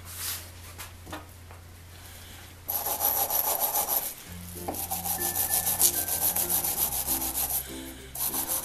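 Fine stainless-steel wire brush scrubbing the threads of a brass blowtorch pump part in quick scratchy back-and-forth strokes. The strokes start about three seconds in and pause briefly twice, with a few light handling clicks before they begin.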